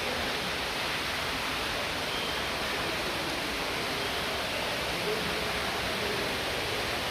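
Steady rushing of falling water from an indoor waterfall, an even, unbroken wash of noise.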